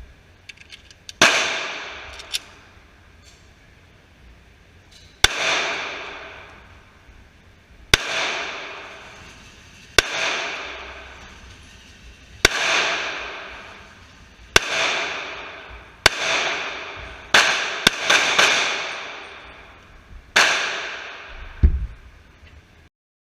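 Glock 27 .40 S&W subcompact pistol firing about ten single shots, spaced one to four seconds apart with a quick pair near the middle. Each shot rings out in a long echo off the walls of an indoor range.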